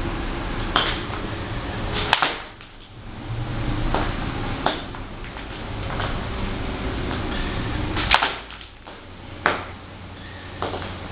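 Ballet boots stepping on a granite tile floor: a slow, irregular series of sharp clicks as the boot tips and spike heels strike the stone, the loudest about two seconds and eight seconds in.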